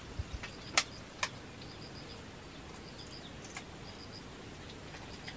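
Eggshell tapped against a ceramic plate while an egg is cracked: a few soft knocks, then two sharp clicks about half a second apart. Faint short high chirps repeat about once a second in the background.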